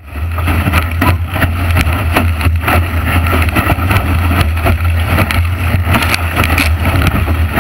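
Heavy wind buffeting on a boat-mounted camera's microphone, with rushing water and repeated spray hits from a small sailing boat sailing fast in very strong wind, about 35 knots. The sound starts suddenly and stays loud throughout.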